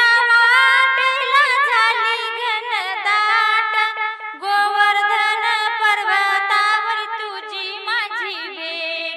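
A woman singing a verse of a Marathi devotional gavlan (a Radha–Krishna song) in long, ornamented, wavering phrases over instrumental accompaniment, with a short break between phrases about four seconds in.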